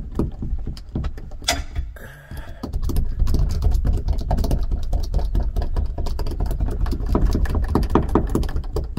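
Metal roller being rolled back and forth over asphalt-based sound deadener on a vehicle's sheet-metal roof, pressing it into the seam between two sheets: a fast, irregular run of clicks and rattles over a low rumble, busiest after a short lull about two seconds in.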